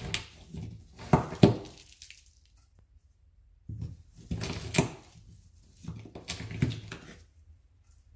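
A knife blade scraping and gouging into the hard-packed casing of a canister salute shell, in three short bouts of scraping with sharp clicks and near-quiet pauses between. The cut is working down towards the flash powder charge inside.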